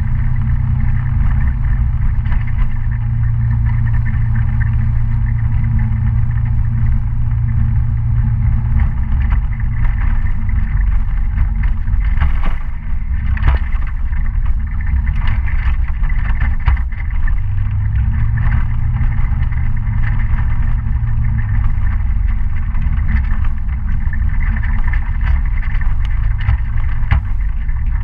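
Kymco Citycom 300i scooter's single-cylinder engine running steadily on a dirt road, under a heavy low rumble, with scattered clicks and knocks, the strongest about halfway through.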